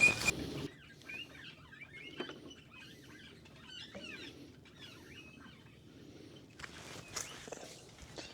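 Faint, scattered bird chirps: short high calls repeated over several seconds.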